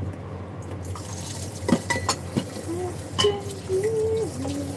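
Kitchen sink sounds: running water with a few sharp clinks of dishes in the middle. In the second half, a person hums a few held notes.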